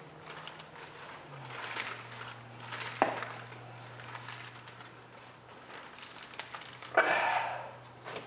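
Copper winding wire being pulled from an electric motor's stator and handled: scraping and rustling of the wire, a sharp click about three seconds in, and a longer scrape near the end, over a steady low hum.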